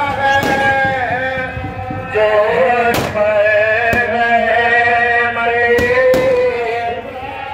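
Firecrackers going off in sharp bangs, about half a second in, around three seconds and twice near six seconds, over a man chanting in long held notes.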